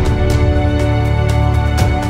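Background music: sustained held notes over a low bass, with regular percussion strikes.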